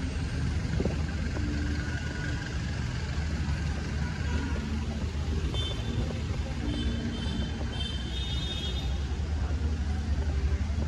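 Steady traffic noise on a busy city street: the engines and tyres of passing vehicles make a continuous low rumble, with a few faint short tones mixed in.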